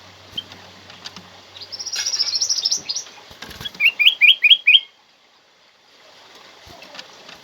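Kutilang emas (ruby-throated bulbul) singing: a fast run of high notes, then five loud, quick, sharp notes, after which the song breaks off.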